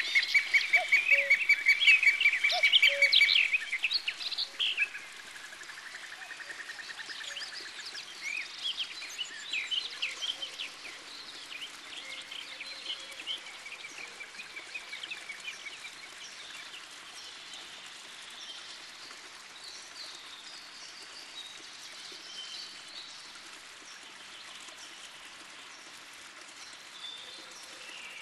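Songbirds singing: a loud, fast trill of short chirps for the first three seconds or so, a lower trill just after, then scattered softer chirps and calls over a steady outdoor hiss.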